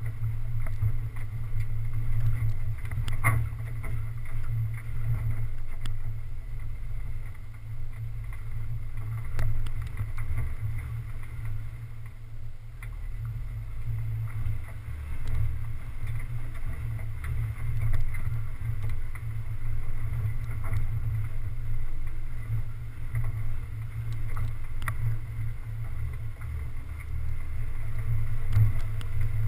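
Low, uneven rumble of an off-road 4x4 driving slowly along a rough dirt track, picked up by a camera mounted on the hood, with occasional small clicks and knocks from the road and the body.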